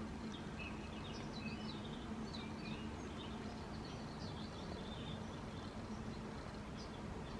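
Small birds chirping and twittering in many short, high calls, over a steady low hum.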